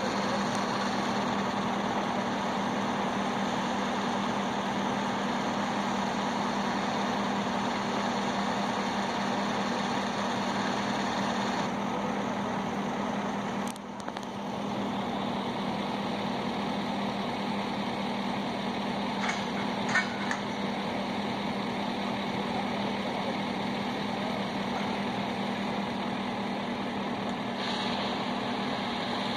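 Engine idling steadily, a constant low hum under a broad rumble, with a brief dip about 14 seconds in.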